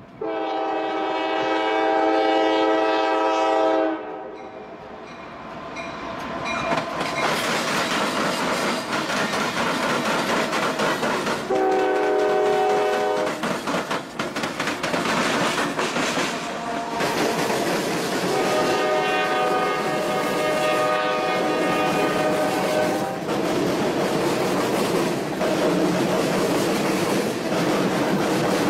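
Air horn of a GE ES44AC diesel freight locomotive blowing three blasts: a long one at the start, a short one about twelve seconds in, and another long one about nineteen seconds in. Between and after the blasts come the loud running of the passing locomotive and the clatter of freight car wheels on the rails.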